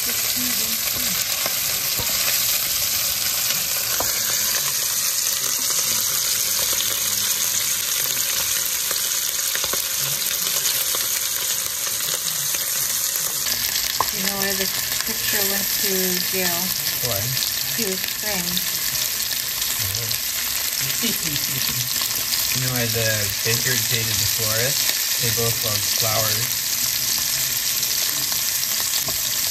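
Sliced chicken apple sausage sizzling in hot oil in a nonstick pan, a steady frying hiss, with a wooden spoon stirring the pieces at times.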